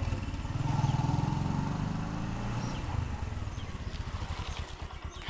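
Motor vehicle engine running with a low, rapid pulsing, slowly fading and slowing near the end.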